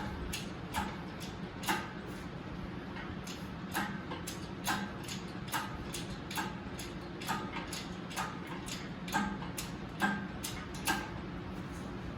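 Sharp metallic clicks at a regular pace of about one a second, some with a short ring, over a steady low hum.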